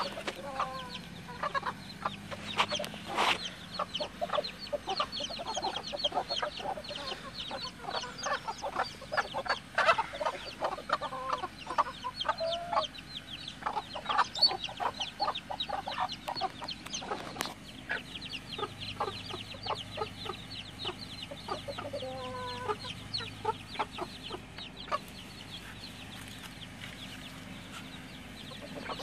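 Backyard hens clucking and chattering as a flock, a near-continuous run of short quick clucks with a few brief drawn-out calls.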